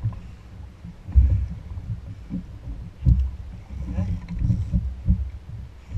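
Water slapping and sloshing against a jetski hull, with wind buffeting the camera microphone: irregular low rumbles and thumps, the loudest about a second in and again around three seconds in.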